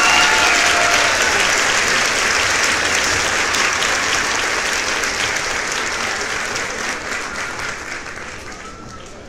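Crowd applauding, a dense patter of many hands clapping that fades away over the last few seconds.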